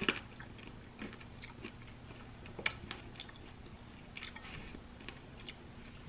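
A person chewing a spoonful of berries in oat milk with the mouth close to the microphone: faint, irregular crunches and small clicks, with a sharper click right at the start as the wooden spoon goes into the mouth.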